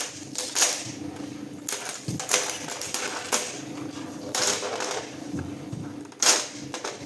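Repeated short clattering and rattling of hard plastic, about eight quick bursts, over a steady low hum from a 3D printer's motors.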